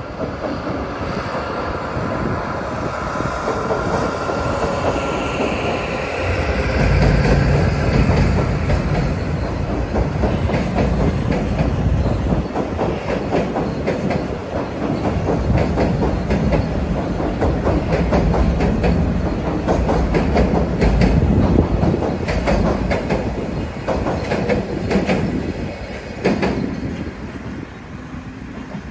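KE65 diesel locomotive hauling a container freight train across an old steel girder railway bridge. The train's sound grows to a heavy low rumble about seven seconds in, with a long run of repeated wheel clacks as the container wagons roll over the bridge, then fades near the end.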